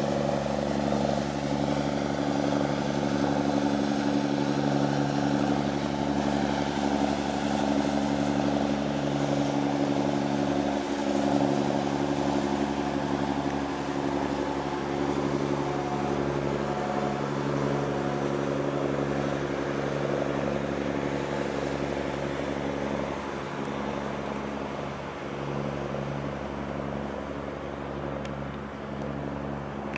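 Steady low engine drone made of several held tones, easing off slightly over the last few seconds.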